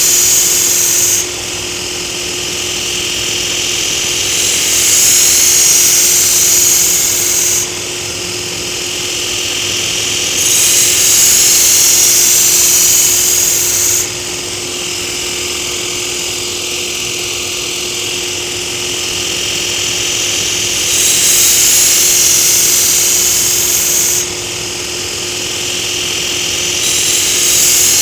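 Belt grinder running with a steady hum while a Takeda nakiri's laminated steel blade is held to the abrasive belt in repeated passes of about three seconds, each a loud high grinding hiss that cuts in and out. Between passes only the belt's running is heard. The blade is being thinned, its single scandi grind ground away to form a primary and secondary bevel.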